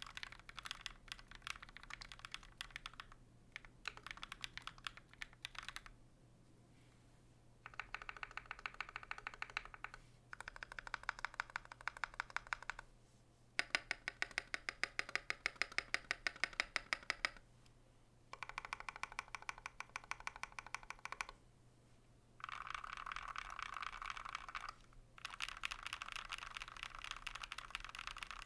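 Typing on a KBD67 Mk II mechanical keyboard with lubed Durock POM linear switches on an FR4 plate, in runs separated by short pauses. Midway comes a run of single, evenly spaced presses of the larger modifier keys. Near the end come quick rolling strokes across the home row.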